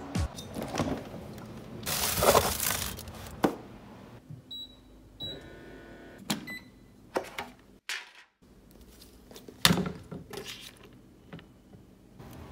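Kitchen work sounds: a rustling burst about two seconds in, then two short high beeps from a range hood's touch controls being pressed, and scattered clicks and knocks of utensils and dishes, the sharpest one past the middle.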